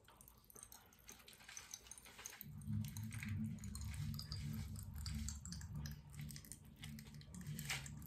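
Faint scattered clicks and crackles of hard candy being chewed and handled. A low rumble starts about two and a half seconds in and carries on.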